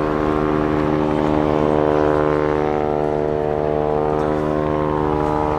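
Westland Wasp and Wildcat helicopters flying together in formation: a steady drone of rotors and turbine engines, a dense whine of even tones over a low rotor chop.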